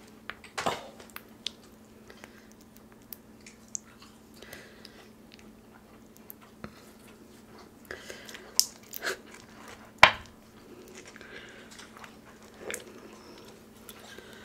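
Close-miked eating sounds: chewing and wet mouth smacks with scattered small clicks and crackles, and a sharp crunch or snap about ten seconds in that is the loudest sound.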